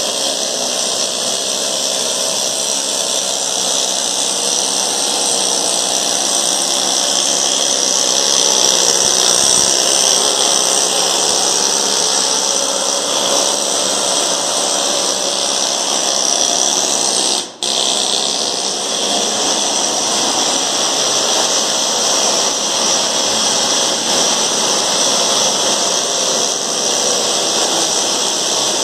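Steady, loud hissing noise from shipyard machinery or power tools at work. It runs without pause and drops out for a moment about two-thirds of the way through.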